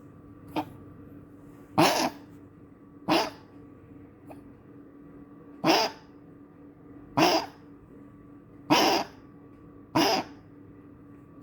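A dog coughing in a bout, a short sharp hack about every second and a half, seven or so in a row, over a faint steady hum.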